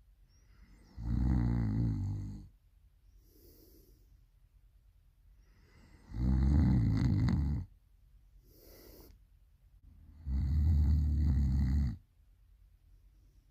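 A person snoring really loud: three long snores about four seconds apart, each followed by a much softer breath out.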